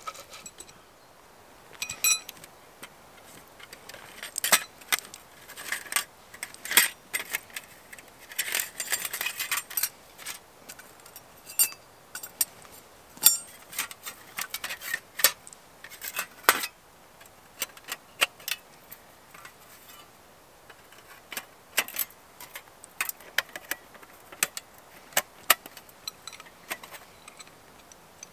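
Metal parts of a folding metal fire bowl clinking and clattering as it is unpacked and set up, a scattering of sharp, bright clinks with a longer scrape about a third of the way in.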